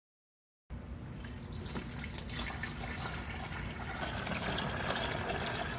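Water running into a container, filling it, starting suddenly about a second in.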